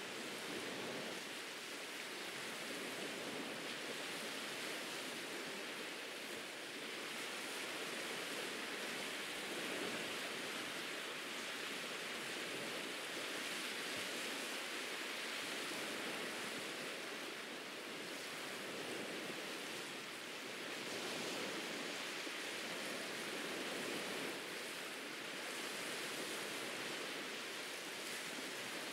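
Ocean surf washing onto a beach: a steady rushing hiss that swells and eases gently every few seconds.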